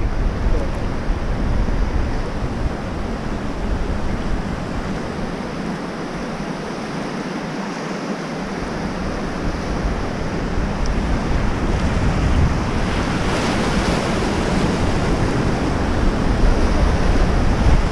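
Rushing whitewater of river rapids all around an inflatable raft, with wind buffeting the microphone; the low wind rumble eases for a few seconds midway, then comes back.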